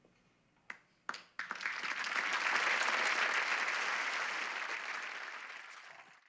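Studio audience applauding: a few scattered claps about a second in, then full applause that swells and slowly dies away.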